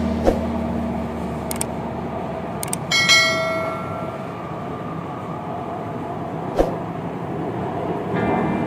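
Steady rumble and hiss inside a metro train carriage, with a couple of sharp clicks and a short bright chime about three seconds in.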